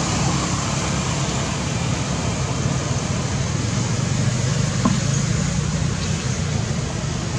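Steady low-pitched background noise with a faint haze above it, and a brief faint sound about five seconds in.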